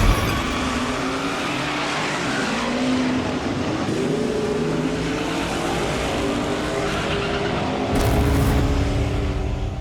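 A car engine running hard, its note rising and falling, with tyre squeal, as in an autocross run. About eight seconds in it turns louder and deeper.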